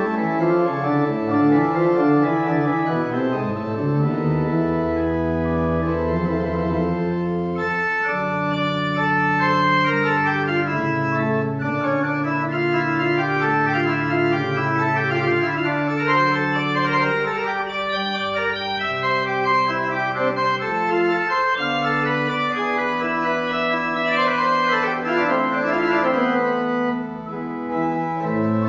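Restored church pipe organ playing a piece: long held bass notes under several moving upper voices.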